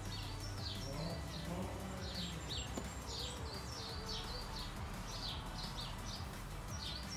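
A songbird singing: a quick, repeated series of short falling chirps with a few held notes, over a steady low rumble.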